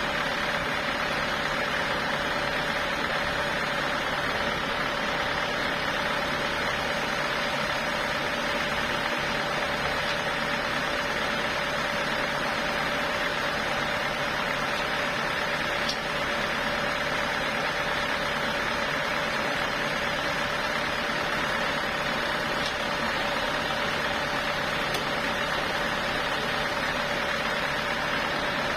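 Sawmill machinery running steadily, a loud, unchanging mechanical hum with a steady tone in it.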